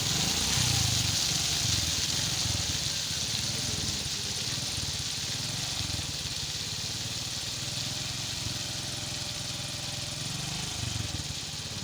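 Heavy vehicle engine running steadily on a road construction site, with a low pulsing rumble, under a high hiss that slowly fades.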